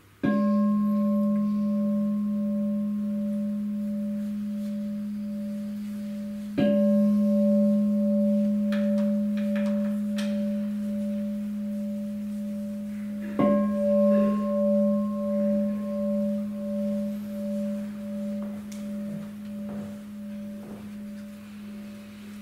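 Large Buddhist bowl bell struck three times, about seven seconds apart. Each strike rings on in a deep hum with higher overtones that waver in loudness as they slowly fade.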